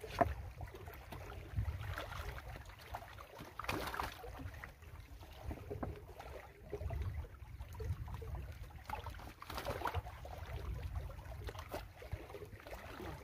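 Small lake waves lapping and splashing against shore rocks in irregular swishes, with wind rumbling on the microphone.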